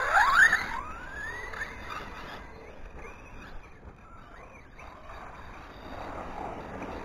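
Radio-controlled model cars whining as they accelerate, the pitch rising sharply in the first second, then fainter and wavering as the cars drive off.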